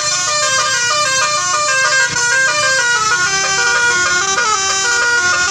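Bus telolet horn, a set of multi-tone air horns, playing a quick tune of short stepped notes, several pitches sounding together.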